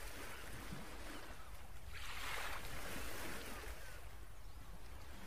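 Faint outdoor noise of a marsh pond: a soft, even hiss with a low hum beneath, swelling briefly about two seconds in.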